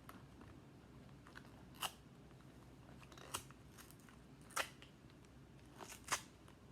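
A handful of short, sharp clicks of small plastic parts being handled, spaced a second or so apart, with a quick double click near the end.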